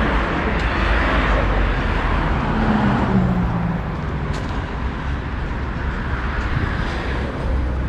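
Road traffic noise from cars passing on a city street: a steady rumble that swells as vehicles go by, about a second in and again near the end.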